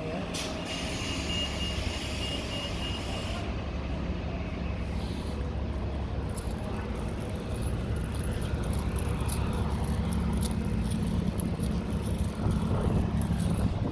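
Car running: a steady low engine and road rumble, with a faint high intermittent beep for the first few seconds.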